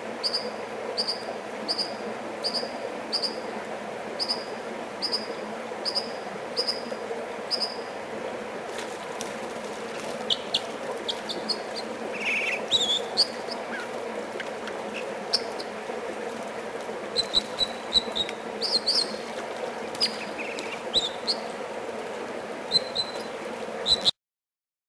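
American dipper singing over the steady rush of stream water. It gives a run of about fourteen identical high notes, about two a second, then breaks into a looser mix of varied sharp chirps and short notes.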